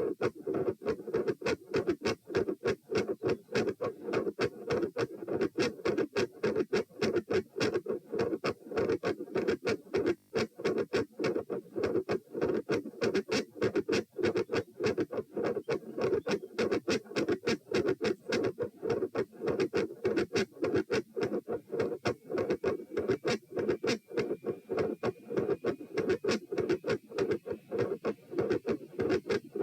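Heart sounds heard through a stethoscope at the pulmonic (P) position: a fast, very loud heartbeat of sharp, regular beats, several a second, over a continuous noise underneath. The recording is taken during an exercise stress test and is labelled as carrying an S2 murmur.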